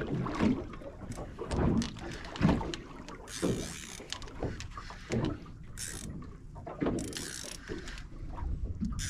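Spinning reel working under the load of a heavy fish: gear and drag clicks, with a few short bursts of the drag giving line.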